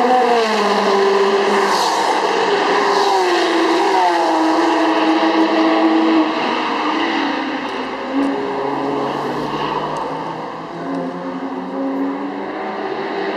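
Sports car engine at speed on a racetrack, its pitch climbing under acceleration and dropping at each gear change or lift-off. It is loud for the first six seconds, then quieter with shorter rises and falls.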